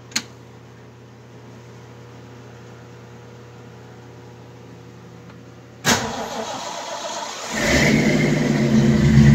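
A click as the ignition key is turned, then about six seconds in the Bronco's Ford 5.0 V8 cranks on the starter, getting louder partway through. It does not run, because the engine computer had been taken out.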